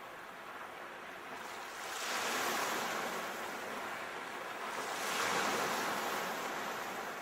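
Sea waves washing onto a shore: two waves swell and break, about 2 seconds in and again, a little louder, about 5 seconds in, each falling back to a steady hiss of surf.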